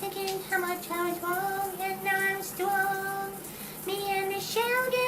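A high voice singing a wordless melody in held notes, stepping up and down in pitch, then jumping to a higher held note near the end.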